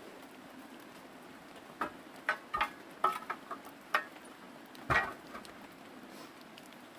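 Light knocks, clatters and rustles of sticks and debris being picked up, handled and tossed aside on a dirt path. About eight scattered knocks come between two and five seconds in, the loudest a thud near five seconds.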